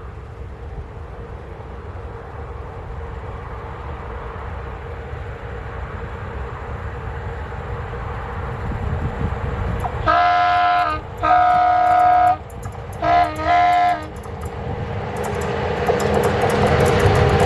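Approaching freight train hauled by Electroputere LE5100 electric locomotives: a steadily rising rumble, then three blasts of the locomotive horn, each about a second long, about ten seconds in. Rapid wheel clicks on the rails and a louder rumble follow near the end as the train draws close.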